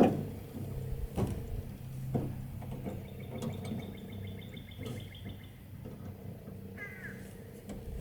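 Faint clicks and taps of tailgate latch parts being fitted by hand, over a low steady hum. A short falling chirp-like call sounds about seven seconds in.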